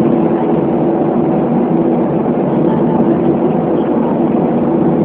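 Steady, even cabin noise of an airliner in cruise flight: engine and airflow noise heard inside the passenger cabin.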